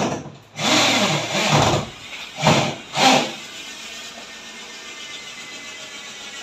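Cordless drill run in bursts, its motor spinning up and down in pitch. One run lasts about a second, then two short blips come around two and a half and three seconds in, and after those only a steady low hum remains.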